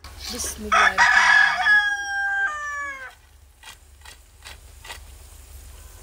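A rooster crowing once, a long cock-a-doodle-doo whose pitch falls at the end, followed by a few light clicks.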